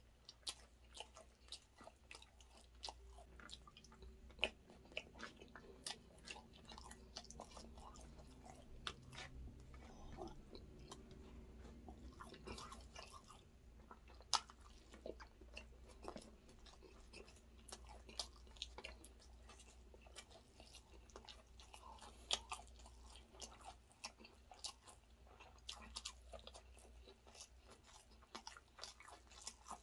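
Quiet, close-up chewing and mouth sounds of a person eating chicken biryani with rice, with many short sharp clicks scattered throughout.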